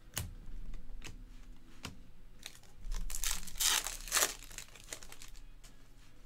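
Trading-card pack wrapper being torn open and crinkled by hand, loudest about three to four and a half seconds in, after a few light clicks of baseball cards being flicked through a stack.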